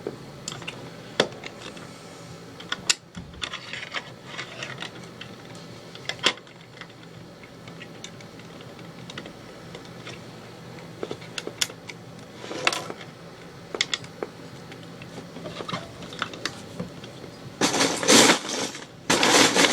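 Small plastic Lego bricks clicking and clattering as someone rummages through loose pieces, with scattered single clicks and a louder rattling clatter near the end.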